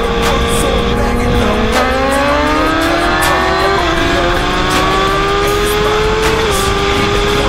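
Inline-four sportbike engines running at highway speed under heavy wind noise. About a second and a half in, one engine starts pulling, its pitch rising steadily for about five seconds, then levelling off.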